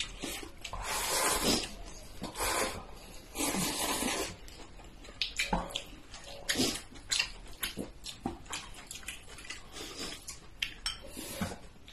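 People eating from bowls: several wet slurps in the first few seconds, then chewing and scattered clicks of chopsticks against porcelain bowls.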